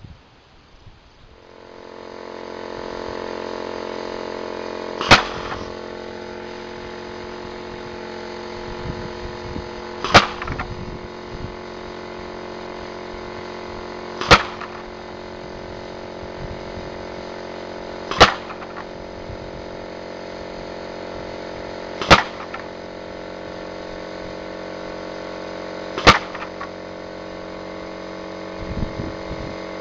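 Homemade pneumatic piston-valve golf ball cannon firing six sharp shots, about one every four seconds, as it cycles semi-automatically. A steady machine hum starts about a second and a half in and runs on under the shots.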